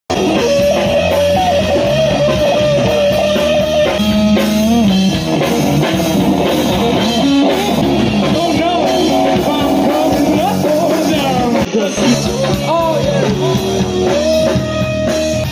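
Rock band playing: electric guitars, bass and drum kit, with a long held lead line that bends in pitch.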